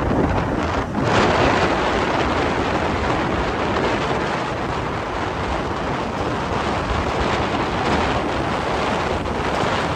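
Wind buffeting the microphone of a vehicle moving along a road, a steady rushing noise with road and traffic noise beneath it.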